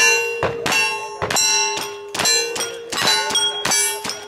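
Steel targets ringing as they are hit by rapid gunfire, about two to three hits a second. Each hit is a sharp clang that keeps ringing into the next.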